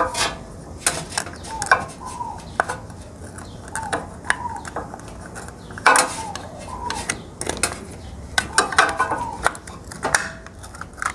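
Small clicks, taps and scrapes of the thermal protector and its cap being handled and pressed into place on top of a rotary compressor, with a few short falling squeaks among them.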